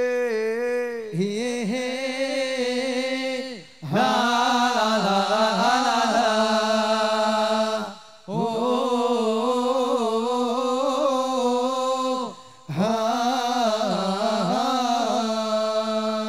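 A man singing long, drawn-out melismatic phrases through a microphone and PA, four phrases of about four seconds each with short breaks between them.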